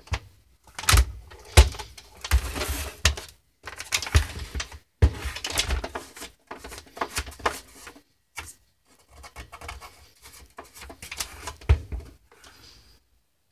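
Kodak Carousel 4200 slide projector being handled and turned on a tabletop: irregular knocks, clicks and scraping of its plastic case, with short pauses between.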